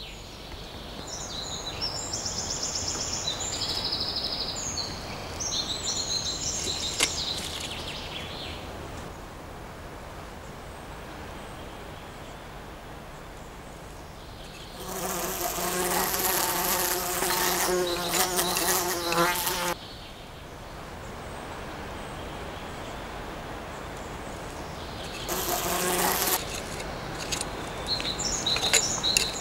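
A flying insect buzzing close by: one loud pass lasting about five seconds midway, and a shorter one a little later. Birds chirp in the first few seconds.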